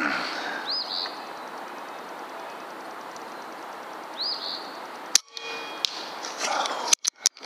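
A single rifle shot about five seconds in, followed by a brief ringing. Sharp clicks come near the end, and a bird chirps a few times over a steady outdoor hiss.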